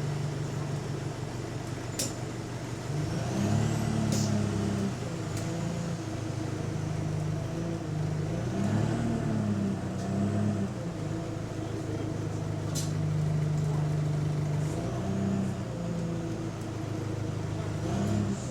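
Bus engine running with an exhaust leak, its note rising and falling three times as it pulls and eases off. A few sharp clicks or rattles cut in.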